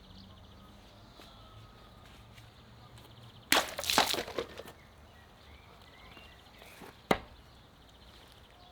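Meat cleaver chopping: a quick cluster of loud blows about three and a half seconds in, then one sharp single chop about seven seconds in.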